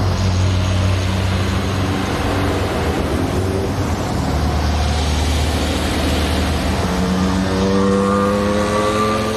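Car engines running amid street traffic, a steady noisy rumble; near the end an engine revs, rising in pitch.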